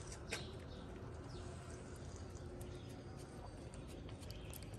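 Domestic cat eating chunks of wet food from a plastic tray, with faint chewing clicks scattered through.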